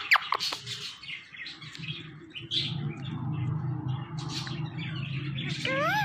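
Indian ringneck parakeet calling: a few sharp whistled chirps at the start, then soft chatter, and one rising-then-falling whistle near the end.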